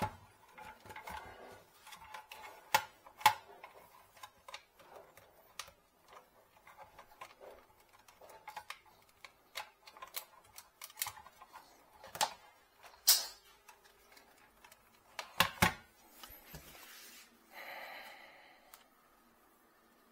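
Hands handling small plastic electronic equipment and cable plugs: irregular light clicks and taps, a few sharper knocks among them, and a brief rustling noise near the end.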